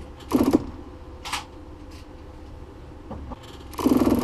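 Boat's freshwater pressure pump kicking on in short bursts to repressurize the water system, rattling the bulkhead it is screwed to. There are three bursts: a short one just after the start, a brief one about a second later, and a longer one near the end.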